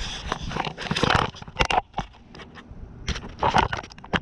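Handling noise from a camera being picked up and repositioned by hand: irregular knocks, sharp clicks and short scrapes and rustles against the microphone, several of them close together near the middle and again past three seconds in.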